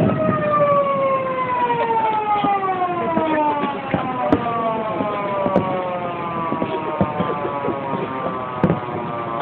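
Japanese police patrol car siren in one long wail that slowly falls in pitch as it winds down. A few short sharp clicks and knocks sound over it.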